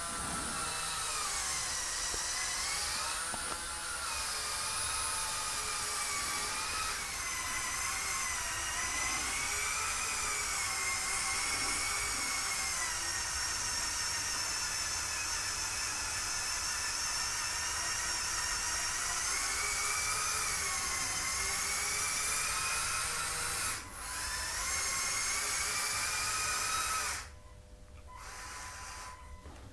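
The LEGO Technic 42129 Mercedes-Benz Zetros trial truck's two L-motors and gear train whining as the truck crawls along, the pitch wavering up and down with the load. The whine dips briefly near the end, then stops a few seconds before the end.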